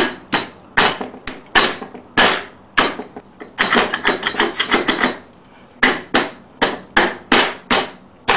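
Repeated sharp knocks of a hand striking a steel magnet rotor to drive it onto its mounting studs, about three a second, with a short pause a little past halfway. The studs bind in holes clogged with paint.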